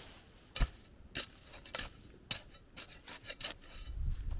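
Metal spade blade scraping and cutting into loose soil and straw, a series of sharp scrapes about one every half second as soil is pushed back over planting holes. A low wind rumble on the microphone builds near the end.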